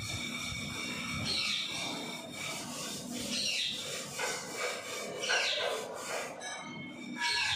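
Rose-ringed parakeets calling: four short sweeping calls, about two seconds apart.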